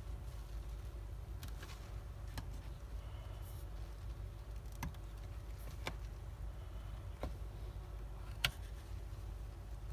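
Small, sharp metal clicks and ticks, about five spread a second or so apart, from tools and parts being handled during a head swap on a Toshiba MQ04 hard drive, over a steady low hum.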